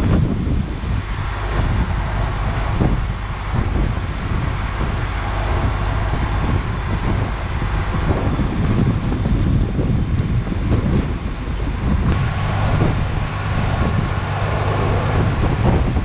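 Case IH 2588 combine's diesel engine running steadily, with wind buffeting the microphone.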